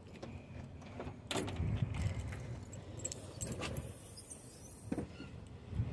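A few clicks and knocks from an SUV's rear hatch being opened, over a low outdoor rumble.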